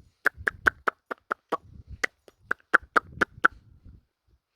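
A person clicking their tongue over and over, about fourteen sharp clucks at roughly four a second, to urge a lying-down horse to get up.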